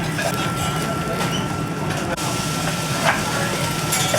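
Restaurant ambience: a steady hum with a thin high whine, background voices, and a brief clink about three seconds in.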